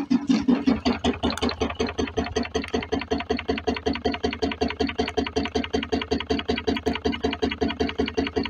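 Homemade alpha-type Stirling engine running steadily, making a fast, even beat over a low hum. The owner puts the bouncing-ball sound of the running engine down to its new silicone rubber hot-side seal.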